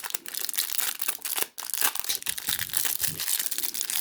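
Foil wrapper of a baseball card pack crinkling as it is handled and torn, in a dense run of small crackles.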